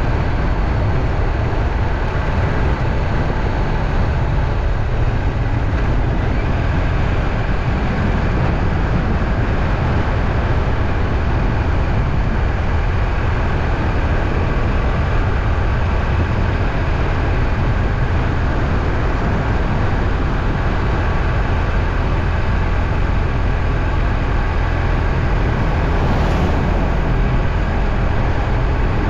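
Steady rumbling noise of a moving vehicle, even and unbroken throughout.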